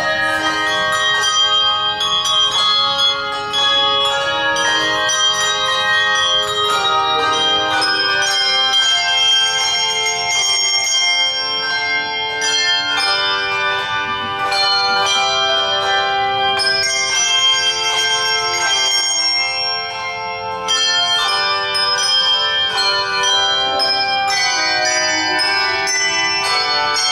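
Handbell choir ringing a chordal arrangement, many bell tones sounding together and ringing on. The sound drops briefly about twenty seconds in, then comes back in full.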